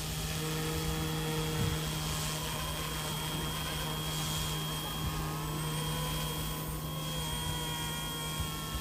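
Battery-powered Eachine E186 RC scale helicopter flying: a steady low rotor hum with a thin, steady high-pitched motor whine over it.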